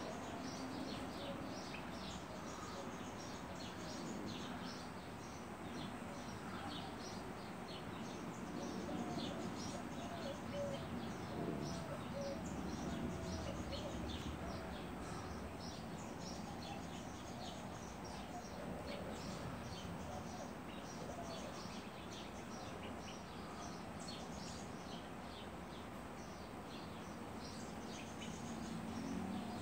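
Small birds chirping over and over in short high notes, over a steady low background noise.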